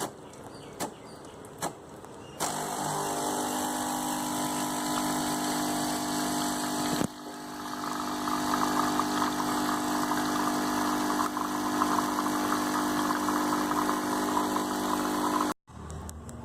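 A Breville 800ES espresso machine's pump running with a steady mechanical hum. About seven seconds in it turns to a louder, rattling buzz, and it cuts off suddenly near the end. A few short clicks come before it starts.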